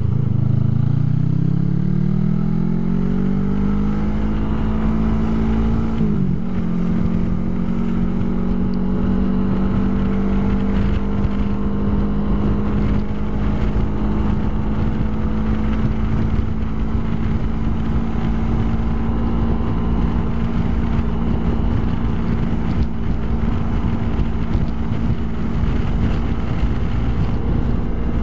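Suzuki GW250's 248 cc parallel-twin engine pulling under acceleration, its pitch rising over the first few seconds, with a brief downward sweep in pitch about six seconds in. It then holds a steady note at cruising speed over a constant rush of wind noise.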